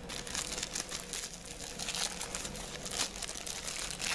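Thin plastic wrapping crinkling and rustling as hands tear and pull it open around a phone wall charger.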